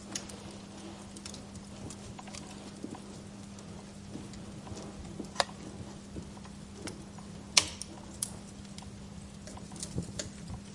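Wood fire crackling in a fireplace: a steady low hiss and hum, broken by irregular sharp pops and snaps of burning logs. The loudest snap comes about three-quarters of the way through, and a quick cluster of pops follows near the end.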